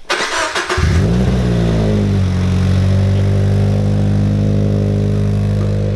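Toyota 86's 2.0-litre flat-four boxer engine, breathing through an Invidia N1 catback exhaust, starting up about a second in. It flares briefly in pitch, then settles into a loud, steady, deep idle.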